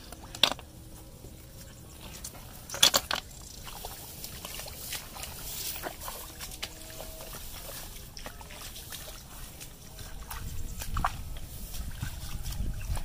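Hands and feet moving through shallow muddy water among grass: small trickles and sloshes. There are two sharp knocks, about half a second in and again near three seconds, and a low rumble in the last few seconds.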